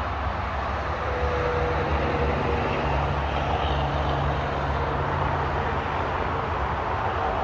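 Steady noise of road traffic, with a heavy low rumble.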